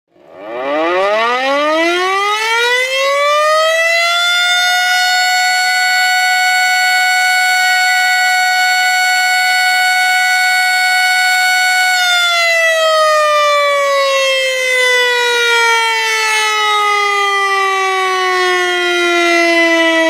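Civil defense siren wailing: it rises in pitch over about four seconds, holds one steady loud wail for about eight seconds, then slowly winds down in pitch.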